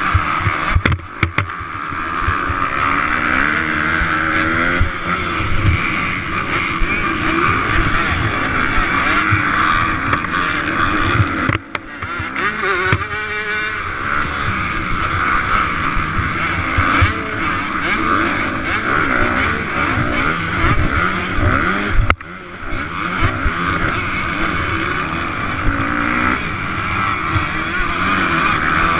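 Motocross bike engine running hard at race speed, its pitch rising and falling with the throttle, heard from on the bike. The sound dips briefly about a second in, again near the middle and again near two-thirds of the way through.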